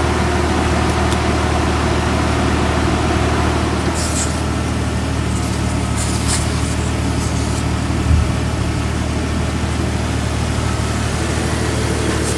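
A steady low mechanical hum runs throughout. Short hisses of air come about four seconds in and again around six to seven seconds, as the inflator hose is hooked back onto the tyre valve. A single thump comes about eight seconds in.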